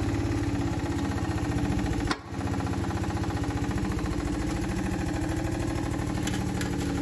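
Hydraulic pump of a catalytic-converter pipe cutter running steadily with a fine, even pulsing as the cutter's cylinder extends and lifts the blade toward the exhaust pipe. The sound breaks off briefly about two seconds in.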